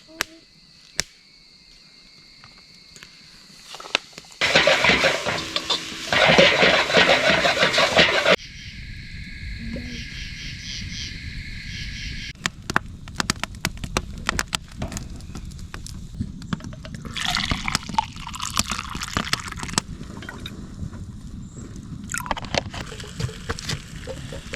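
Camp cooking: water pours in a loud gush for about four seconds, broken briefly in the middle. Then comes a steadier low noise with many scattered clicks and taps.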